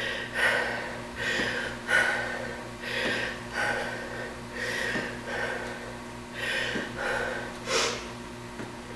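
A woman breathing hard from exertion, a short forceful exhale roughly every second. Faint low thumps of her feet landing on a rubber mat come every couple of seconds.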